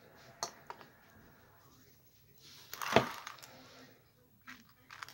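Small plastic Lego bricks clicking as they are handled and pressed together, a few short sharp clicks, with a louder, longer plastic clatter ending in a sharp snap about three seconds in.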